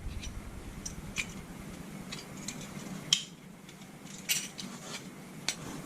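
Scattered small clicks and snaps of hand tools working at a plastic push pin in a refrigerator light fixture; the pin is stuck tight and is being cut out.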